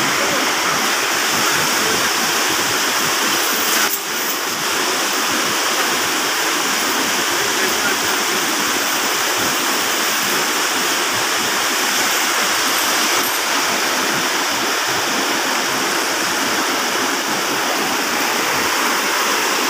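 Steady rush of a fast-flowing river running over rocks and rapids, briefly dipping about four seconds in.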